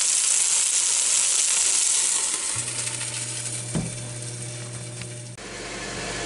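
Chicken wings sizzling in the hot basket of a Ninja Foodi Grill, the hiss fading as the lid is shut. About two and a half seconds in a steady low hum starts, a single thump follows about a second later, and near the end the sound changes abruptly to a steady fan-like whir.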